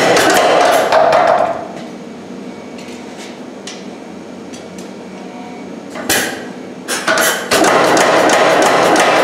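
Ken's Custom Iron 75 pneumatic power hammer forging hot steel in a fast run of blows. It stops about a second and a half in, strikes a few single blows around six to seven seconds, then goes back to fast hammering.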